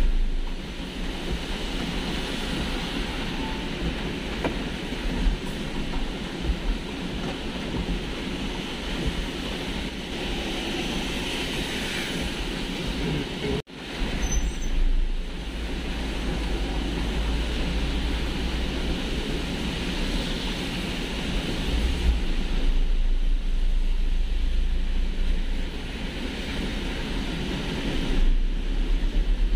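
Cabin noise of a car driving on a rain-soaked highway: tyres hissing on the wet pavement over a steady low rumble. The sound cuts out for an instant about halfway through.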